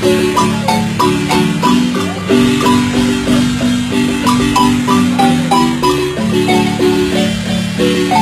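Marimba band playing a lively dance tune, the melody carried in fast rolled notes over a steady bass line.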